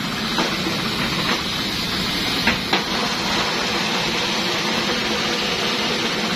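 A steady machine-like drone, with a few sharp clicks or knocks, the loudest two about two and a half seconds in.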